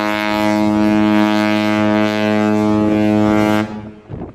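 A cruise ship's horn sounding one long, steady blast that stops about three and a half seconds in.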